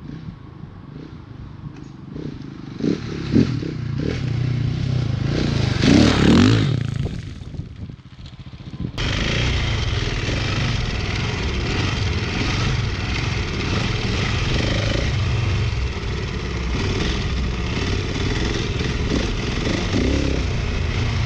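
Husqvarna 701's single-cylinder engine: the bike comes toward and past, its pitch bending as it grows loudest about six seconds in, then fades. After an abrupt cut, the engine runs steadily under riding load as heard from the bike itself, with a constant haze of riding noise.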